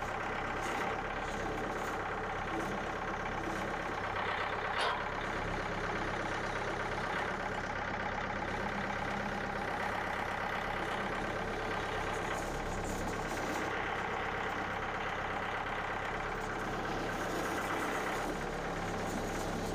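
Small gasoline engine of a portable band sawmill running steadily, with one brief knock about five seconds in.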